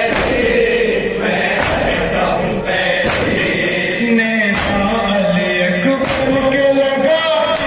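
Noha lament chanted by male voices over a microphone, with the mourners striking their chests in unison (matam) about every second and a half.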